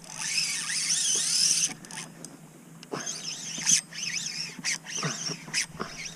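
Lew's spinning reel's drag whining as a hooked false albacore pulls line off the spool, its pitch wavering with the fish's run. It sounds steadily for over a second, eases off, then comes again in short spurts.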